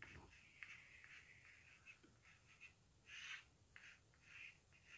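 Chalk scratching on a blackboard as digits and a line are written: faint, short, irregular strokes, the longest about three seconds in.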